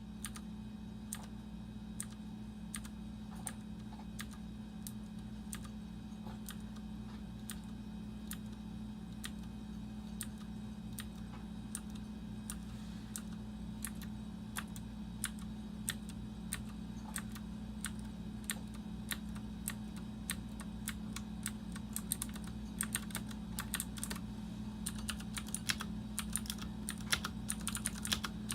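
Mechanical keyboard with clicky Cherry MX Blue switches (Ducky One 2 TKL) being typed on: separate key clicks at first, quickening into rapid, dense typing near the end, over a steady low hum.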